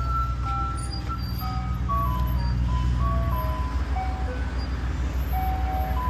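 Background music: a simple melody of short single notes stepping up and down over a heavy, steady bass.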